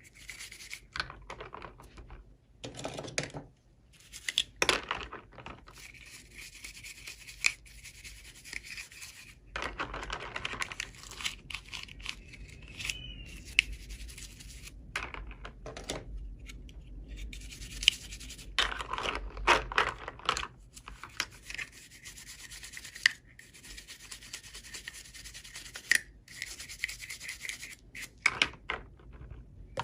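Hands rubbing and scratching at toy packaging and small plastic doll parts, in irregular bursts with many small clicks and taps.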